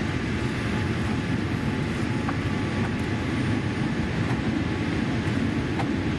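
Steady cabin rumble of a Boeing 787 Dreamliner on final approach, heard from inside the cabin: engine and airflow noise with a few faint clicks.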